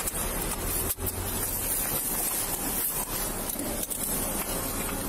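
Steady cabin noise inside a Ford police vehicle with the engine running: a low hum under a hiss. A few brief clicks and rustles come as the body-camera wearer moves, one about a second in.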